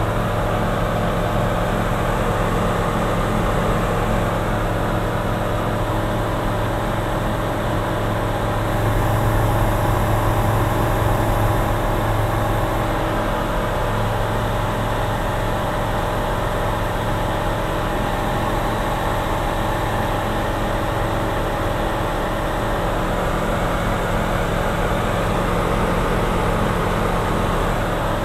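Light single-engine aircraft's engine and propeller droning steadily, heard inside the cockpit in cruise. It gets a little louder, with more hiss, for a few seconds near the middle.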